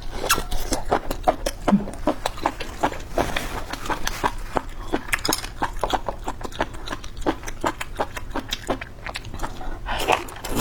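Close-miked eating sounds: rapid, irregular wet clicks and smacks of chewing food dressed in spicy sesame sauce.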